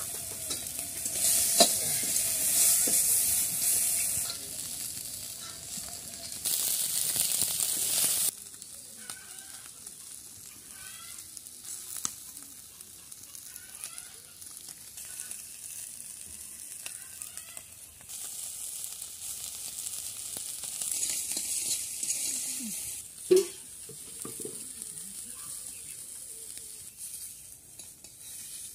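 Pieces of fish frying in hot oil in a wok, sizzling steadily, louder in a few stretches as they are stirred and turned with a metal spatula. One sharp knock late on stands out above the sizzle.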